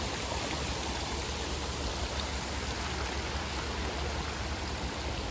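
Steady rush of water pouring through the gaps in leaking wooden canal lock gates and splashing into the lock chamber below.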